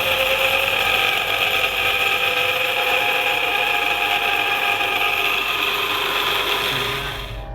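Drive shaft center carrier bearing of a 2014 Honda CR-V grinding steadily as the drive shaft turns: a continuous scratchy grinding with a hissing edge, like a wheel bearing but scratchier, which the mechanic takes for a failing carrier bearing. It cuts off abruptly near the end.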